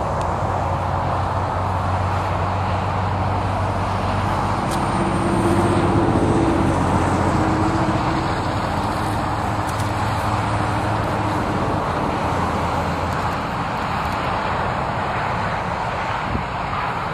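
Small twin-engine aircraft at takeoff power on its takeoff roll and lift-off, heard from a distance as a steady engine noise with a low hum. The noise swells about five seconds in, then slowly eases.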